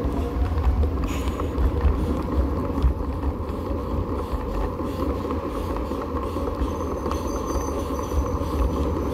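Steady road rumble and wind buffeting picked up by a bicycle-mounted camera as the bike rolls over rough, cracked asphalt.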